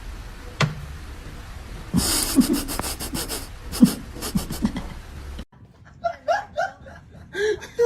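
An animal panting in a quick run of short breaths. Then an abrupt cut to short vocal sounds.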